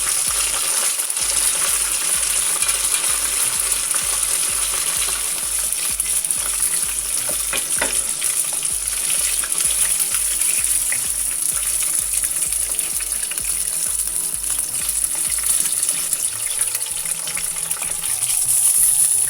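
Karaage (Japanese fried chicken) deep-frying in hot oil: a steady sizzle with a few sharper pops about eight seconds in.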